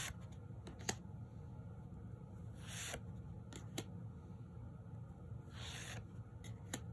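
Grail Tarot cards being slid one at a time off the front of a deck and set aside. There is a soft papery swish about every three seconds, with a few light clicks of card against card.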